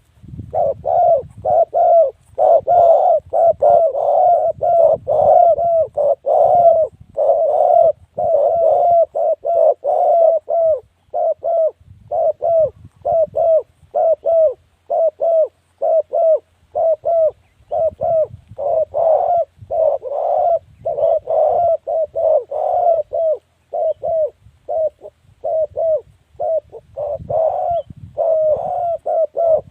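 Spotted dove cooing: a fast, continuous run of short, hoarse coo notes, about two a second, with only brief pauses.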